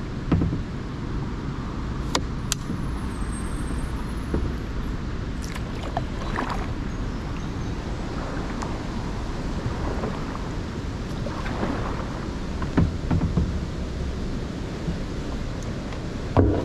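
Kayak paddle blades dipping and splashing in the river every few seconds, over a steady low rushing noise, with a couple of sharp knocks early on.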